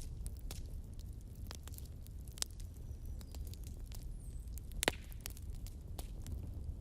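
Wood fire burning in a fireplace: logs crackling with irregular snaps and pops over a low, steady rumble of flame, and one louder pop about five seconds in.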